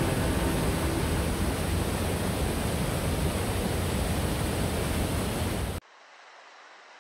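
Water rushing in a powerful jet from an outlet of the Caín dam on the Cares River and crashing into the gorge below, a loud, steady, even rush. It cuts off abruptly about six seconds in, leaving only a faint steady hiss.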